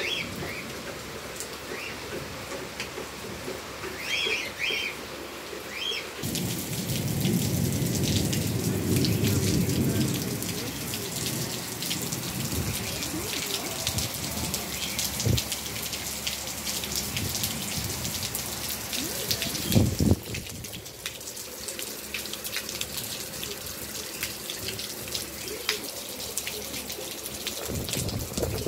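Heavy rain falling on a yard, a dense, steady patter of drops striking the ground. About six seconds in it grows louder and fuller, with a low rumble for a few seconds. A single sharp thump comes about 20 seconds in.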